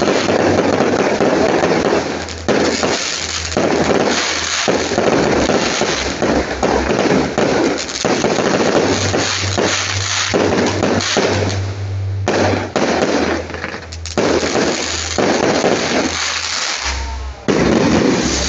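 Aerial fireworks bursting in a dense barrage of bangs and crackling stars, broken by a few short lulls.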